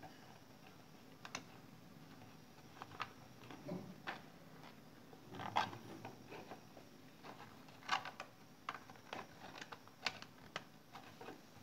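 Faint, irregular clicks and crackles of stiff printed packaging being handled, its crown-shaped cut points bent inward to form the funnel mouth of a trap.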